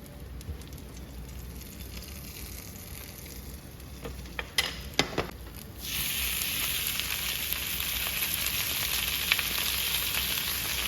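A few light clicks and knocks, then about six seconds in a sudden steady sizzle as bok choy goes into hot sesame oil in a frying pan.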